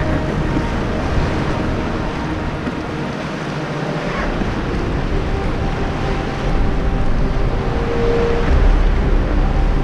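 Water sloshing and splashing along the hull of an inflatable kayak under way, with wind buffeting the microphone.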